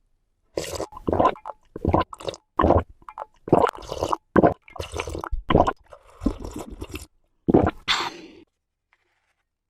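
Close-miked wet eating sounds: a person chewing and smacking soft, saucy food in a quick series of squishy mouthfuls, about one to two a second, stopping about a second before the end.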